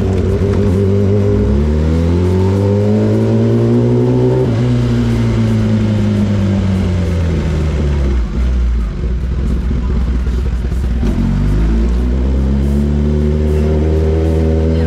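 Motorcycle engine under way, heard from the rider. The revs climb in a long pull about two seconds in, fall away as it slows, and drop off briefly past the middle. Then it pulls away again with rising revs, holding high near the end.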